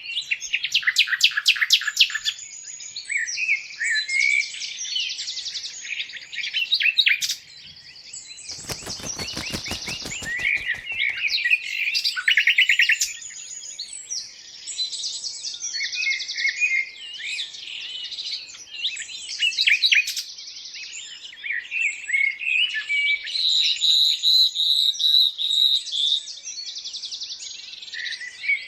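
A chorus of many small birds chirping and singing, with overlapping high trills and twitters. A little over eight seconds in, a fast rattling run of sharp clicks lasts about two seconds.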